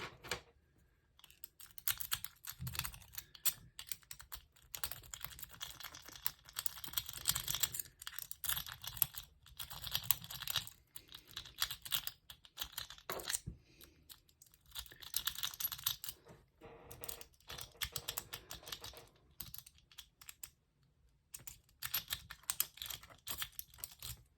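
Lock pick raking the pins of a cross lock under tension: rapid light metallic clicking and scraping in spells of a few seconds, with short pauses between them.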